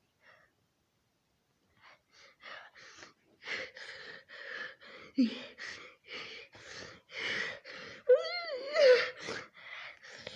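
Cartoon character's voice gasping in a run of short breathy bursts, about three a second, starting about two seconds in, like the build-up to a sneeze. Near the end a louder pitched wail wavers up and down.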